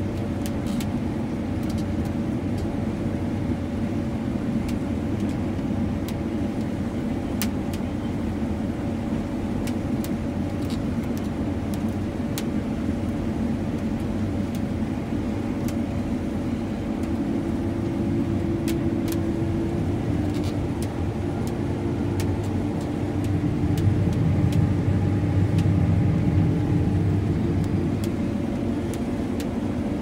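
John Deere S780 combine running steadily while cutting soybeans, heard from inside its cab, with steady tones over its hum and scattered light clicks. The sound swells louder, deeper in pitch, for a few seconds about three-quarters of the way through.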